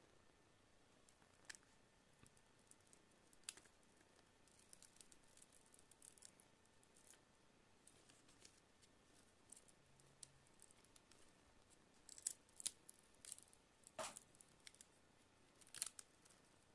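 Tablet's plastic casing being pried and handled: short scraping sounds and sharp plastic clicks, sparse at first and coming thicker toward the end.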